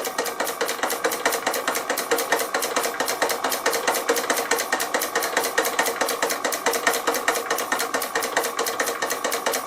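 Doll 347/3 toy stationary steam engine running steadily on compressed air, its exhaust beating in a quick, even rhythm of about seven beats a second over a steady hum. It is running freely on its first test on air after refurbishment.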